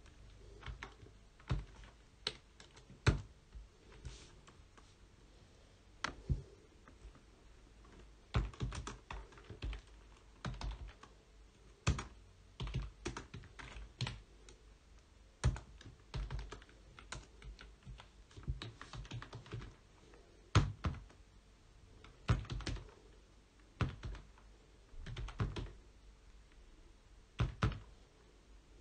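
Typing on a computer keyboard: quick clusters of keystroke clicks in irregular bursts, with short pauses between them.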